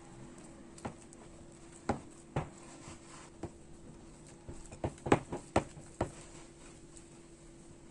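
Soft yeast dough being kneaded by hand in a glass bowl: irregular short slaps and squelches of wet dough against the glass, with a quick cluster of louder ones about five seconds in.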